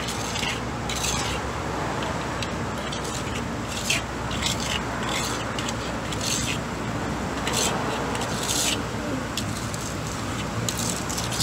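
Hand trowel scraping and smoothing wet cement patch around the base of a square steel sign post set in concrete, in short irregular strokes.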